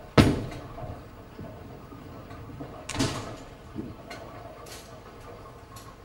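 Bowling ball sounds: a heavy impact just after the start, a second loud crash about three seconds in, then a few lighter knocks, over a steady background noise.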